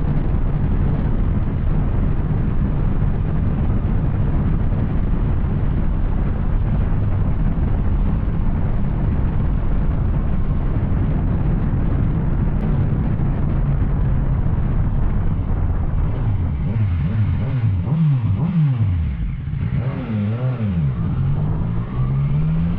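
Yamaha Tracer 900's three-cylinder engine through an Arrow exhaust, running steadily under way. From about two-thirds of the way in, the revs fall and rise several times, as when slowing and changing gear, then climb again near the end.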